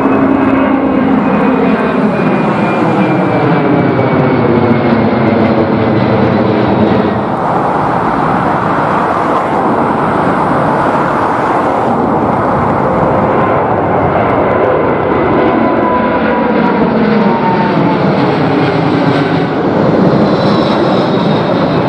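Twin-engine jet airliners running at take-off power as they climb out overhead, one after another: a Boeing 767 and then a Boeing 777-300ER with its GE90 engines. Over each pass the engine tones slide slowly down in pitch, and the sound cuts abruptly from one aircraft to the next.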